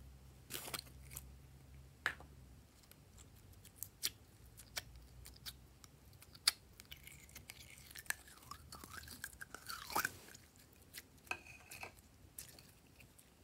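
Glossy slime squeezed, poked and pulled out of a soft plastic container by hand: scattered wet clicks and crackling pops, with a brief wavering squeak about eight to ten seconds in.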